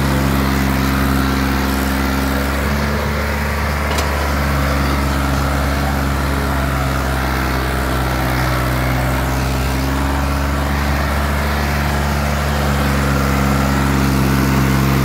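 New Holland 3630 tractor's three-cylinder diesel engine running steadily under load as it pulls a four-wheel trolley.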